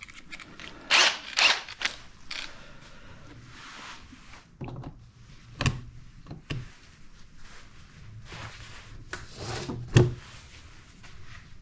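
Handling noise from a cordless drill and a metal hinge-drilling jig: a bit being fitted into the drill's chuck and the drill set into the jig's guide on a wooden cabinet door, with scattered short scrapes and clicks and a sharp knock about ten seconds in.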